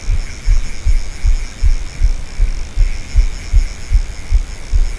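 Rhythmic low thumps, about two and a half a second, from the spinning rod and reel being worked against the body-worn camera while a hooked carp is being played.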